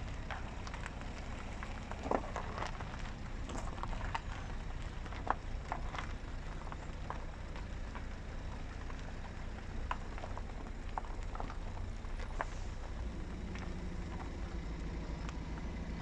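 Outdoor ambience: a steady low rumble with scattered light crackles and clicks, and a faint low hum that joins near the end.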